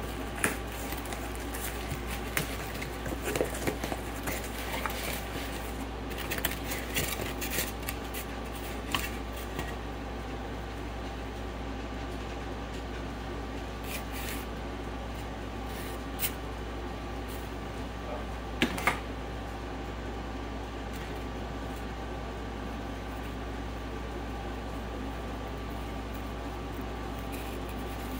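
A cardboard shipping box and its paper packing being handled and opened, heard as scattered light rustles and taps, mostly in the first ten seconds, with two sharp clicks a little past halfway. A steady low hum runs underneath.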